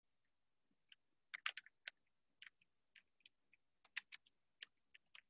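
Faint, irregular clicks of calculator keys being pressed, about a dozen short taps, as a sum is keyed in to check the result.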